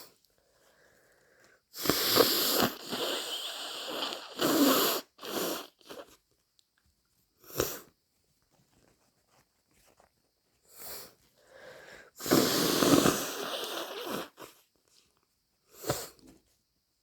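A person with a heavy cold blowing her nose hard into a tissue, two long, snotty, gurgly blows of a few seconds each. A few short nasal bursts come between them and near the end.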